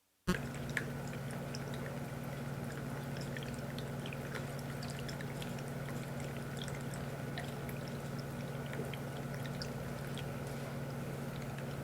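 PetAcc pet water fountain running: a steady pump hum under water trickling and dripping into the bowl, with small scattered drips.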